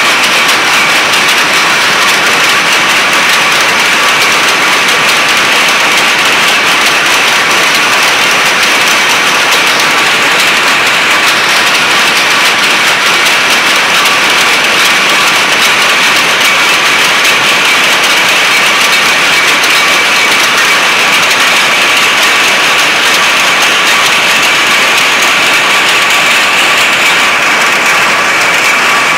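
Many power looms running at once in a weaving shed: a loud, steady, dense mechanical clatter of rapid beats that never lets up.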